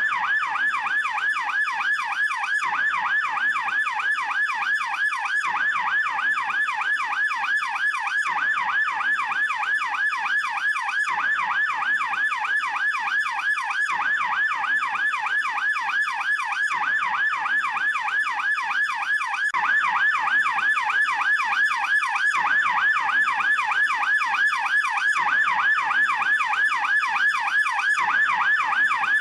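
German police yelp siren wailing in fast, continuous up-and-down sweeps, several a second. It grows slightly louder about twenty seconds in.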